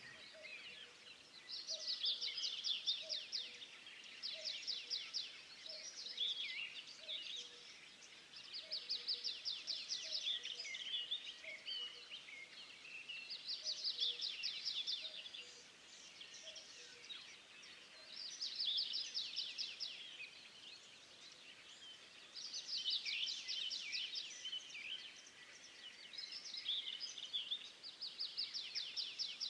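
Songbird singing: rapid trilled phrases a few seconds long, repeated every four to five seconds, over faint outdoor background noise.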